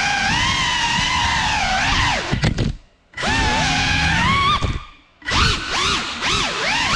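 GEPRC Cinelog35 FPV quadcopter's motors and propellers whining, the pitch sliding up and down as it is flown. Twice the whine drops almost to silence for a moment, then comes straight back.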